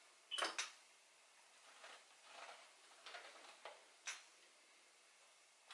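Faint, scattered soft knocks and scrapes of a knife cutting rolled dough on a kitchen counter, the clearest about half a second in.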